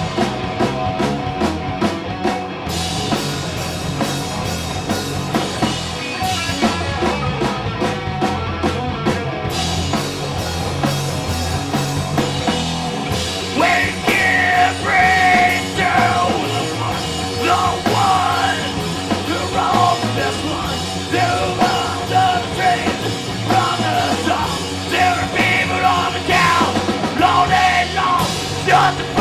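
Live punk rock band playing loud and full, with yelled vocals coming in about halfway through.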